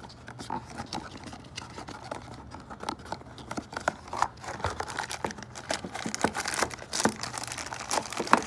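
Cardboard box of a new oxygen sensor being opened one-handed: irregular rustling, scraping and small clicks of the cardboard flaps, with a plastic bag crinkling as the sensor is slid out near the end and a sharp click just before the end.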